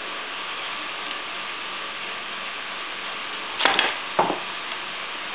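Masking tape ripped off the roll in two short pulls, a little over halfway through, over a steady background hiss.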